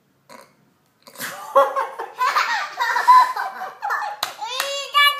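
A man and a toddler burst into loud, hearty laughter together about a second in. Near the end the laughter rises into high, gliding voice sounds.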